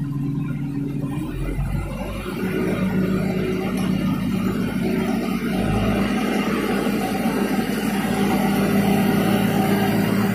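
Mulag belt loader's engine running, picking up speed about two seconds in and then holding a steady, higher pitch.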